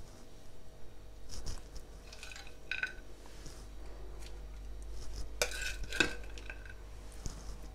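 Metal serving utensil scraping and clinking against a pan while scooping fried raisins, nuts and onions, a handful of separate scrapes and clinks.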